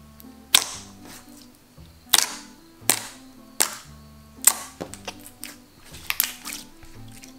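Glossy slime being poked, squeezed and folded by hand, giving off sharp air-bubble pops and clicks at irregular intervals, about a dozen in all. Electronic background music with low synth notes plays underneath.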